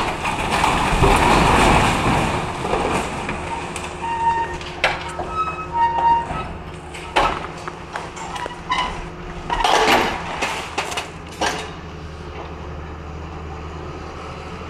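CAT hydraulic excavator demolishing a building: its diesel engine runs steadily underneath while masonry rubble and sheet metal crash and clatter. A long crumbling crash fills the first two seconds, sharp bangs and knocks come through the middle, and a few short high metal squeals sound around four to six seconds in.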